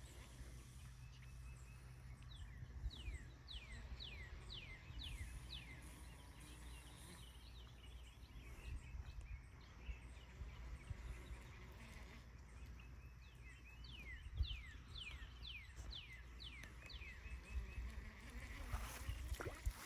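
A bird calling outdoors in two runs of about eight quick falling whistled notes each, over a steady low rumble of outdoor background noise.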